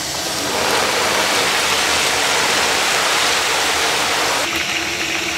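Hot oil sizzling loudly as a wokful of leafy greens deep-fries and is stirred with a wire skimmer. The sizzle drops suddenly about four and a half seconds in.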